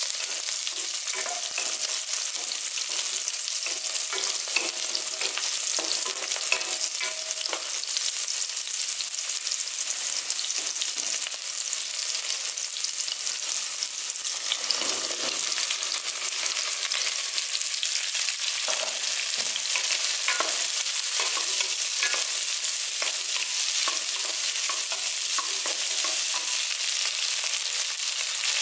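Shallots, garlic and curry leaves frying in hot oil in a stainless steel pot, a steady sizzle, with a spatula stirring and scraping against the pot now and then.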